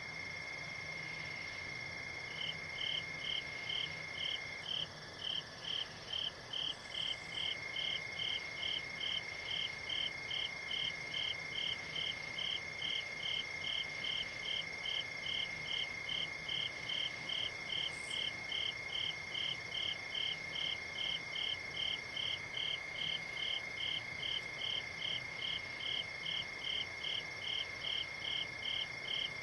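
Night insects calling, crickets in chorus: one steady high-pitched trill and, from about two seconds in, a second insect chirping in a regular rhythm about twice a second.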